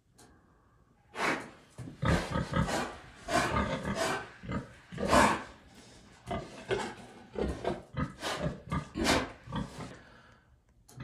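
Pigs in a pen vocalising: a rapid run of short, harsh grunts, starting about a second in and dying away near the end.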